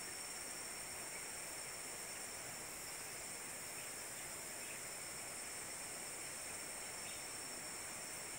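Steady high-pitched drone of an insect chorus, unchanging throughout, over a faint even hiss.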